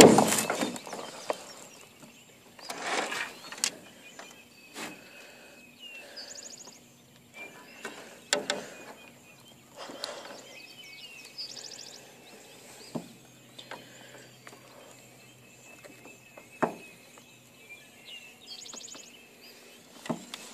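Handling noise of a phone camera and fishing tackle in a small boat: scattered knocks, clicks and rustles, with three brief high-pitched rattles in between.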